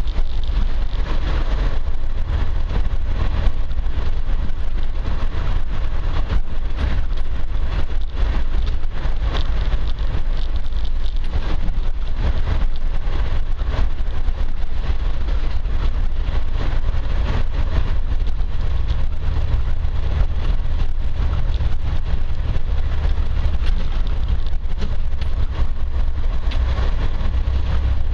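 Land Rover 4x4 driving slowly along a rough, muddy, rutted track, heard from inside the vehicle: a steady low engine and drivetrain rumble with tyre and road noise and many small knocks and rattles from the uneven ground.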